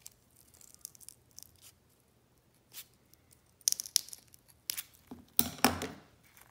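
Scissors snipping into a dry silk Polyphemus moth cocoon: a few short, crisp cuts and rustles, coming thickest and loudest in the second half.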